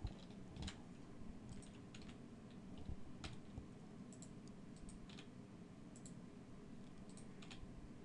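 Faint, irregular clicks of a computer keyboard and mouse: a dozen or so scattered key presses and button clicks over a low steady background hum.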